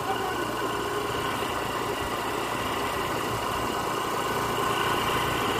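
Small motorcycle engine running steadily as the bike rides along, with a steady rush of road and wind noise.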